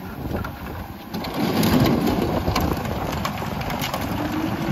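Recyclables tipped from bins into the hopper of a Heil split rear-loader garbage truck, clattering and knocking over the truck's running engine. It gets louder about a second in, and a steady hum joins near the end.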